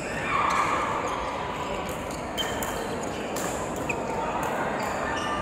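Badminton hall sounds: sharp knocks of shuttlecocks struck with rackets on the courts and short squeaks of shoes on the court floor, with a brief louder high squeal or call about half a second in.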